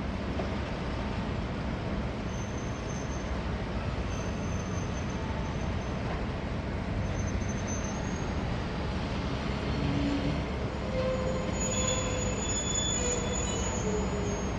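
A train hauling new Sotetsu 12000 series railcars passes, rumbling steadily. Its steel wheels squeal high and thin in short spells, then in a longer squeal of several tones near the end.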